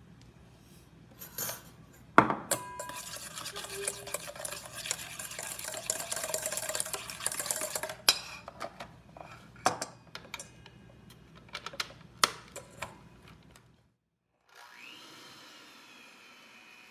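Wire whisk beating egg yolks and sugar in a stainless steel bowl: a sharp knock, then fast scraping and clattering against the metal, easing into scattered taps. After a short gap an electric hand mixer motor starts with a whine that rises and then holds steady.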